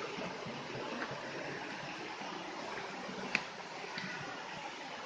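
Steady rush of flowing water, with a few light ticks and one sharp click a little over three seconds in.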